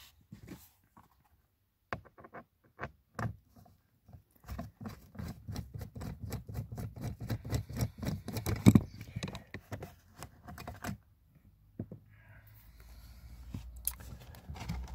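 Torx T20 screwdriver undoing a screw in a car's footwell carpet trim: a few scattered clicks, then a long run of quick, evenly spaced clicks. Near the end, a soft rustle as the carpet is handled.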